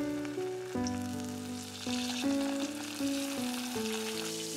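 Sardines frying in hot oil, a steady sizzle that grows louder about two seconds in, under background music.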